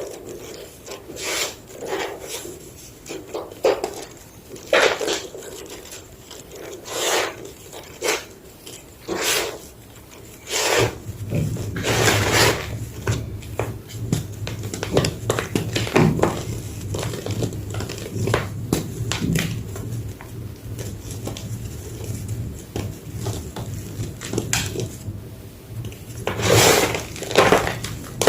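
Large slabs of gym chalk being crushed and crumbled, giving irregular dry crunches and scraping rubs, some much louder than others. A low steady hum comes in about eleven seconds in.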